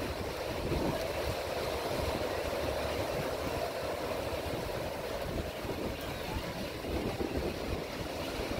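Ocean surf breaking on a beach, a steady wash of waves, with wind buffeting the microphone.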